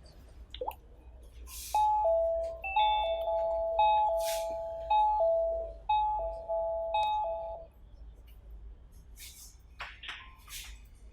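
Electronic doorbell chime ringing on a Dnake wireless video doorbell unit: a short tune of clean beeping notes that starts about two seconds in, pauses briefly, starts again and stops near eight seconds in.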